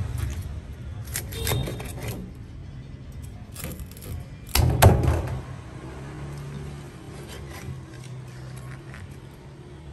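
Scattered clicks and knocks of things being handled, with one loud knock about five seconds in, over a steady low hum.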